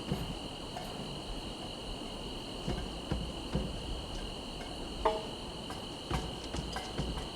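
Crickets calling in a steady, high, unbroken trill, with scattered soft clicks and thumps underneath. The sharpest click comes about five seconds in.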